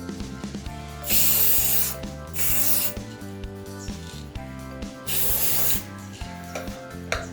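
Aerosol spray can hissing in three short bursts, about a second, half a second and under a second long, over background music.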